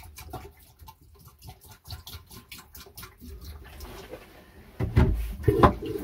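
Pink antifreeze poured from a bottle into a manual marine toilet bowl, a faint trickle. About five seconds in come several quick, loud strokes of the toilet's manual pump handle.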